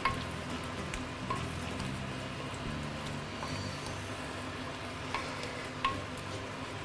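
Wooden spatula stirring thick curry chicken in a stainless steel pan, the sauce sizzling as it cooks. A few light knocks of the spatula on the pan ring briefly, over a steady low hum.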